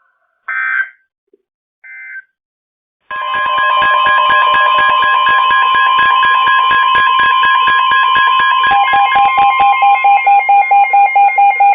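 NOAA Weather Radio alert signalling between warnings: two short screechy digital data bursts, then from about three seconds in a loud, steady warning alarm tone with rapidly pulsing alarm beeps layered over it. Near the end the steady tone drops out and a pulsing beep carries on, announcing the next warning.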